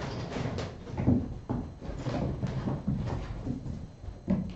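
Irregular knocks and thumps of kittens playing and bumping into things, loudest about a second in and again near the end.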